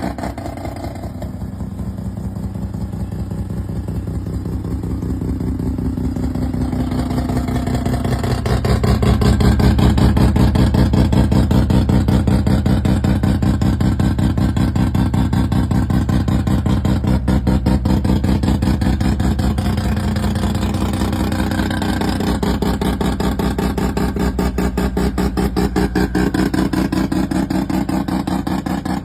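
Mazda RX-7's rotary engine running with a rapid, even exhaust pulse. It picks up revs and gets louder about eight seconds in, then holds there, easing back slightly near the end.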